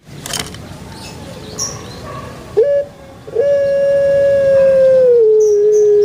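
Puter pelung dove (Streptopelia risoria) cooing: a short note, then one long, low, held note lasting about three seconds that steps down in pitch near the end, the drawn-out ending of its call. Small birds chirp faintly, and there is a sharp click just after the start.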